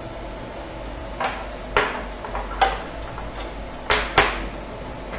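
About five light knocks and clatters as a metal computer power supply case is handled and set down on the printer's base.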